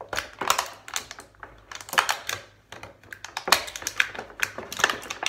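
Scissors snipping and cutting through hard clear plastic blister packaging: a series of irregular sharp snips and plastic crackles.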